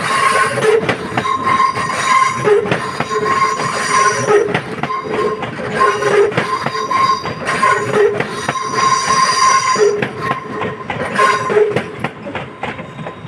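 Electric passenger train rolling slowly through a set of points, its wheels squealing on the curves and clicking over the switches. The squeal comes and goes in repeated tones, goes shrill twice, and the sound fades as the train draws away near the end.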